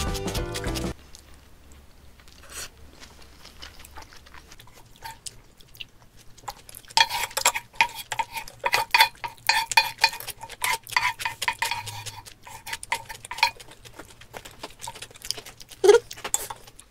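Wooden spoon and chopsticks scraping and tapping the last of the fried rice off the bottom of a black paella pan, a quick run of scrapes and clicks with a slight ring from the pan.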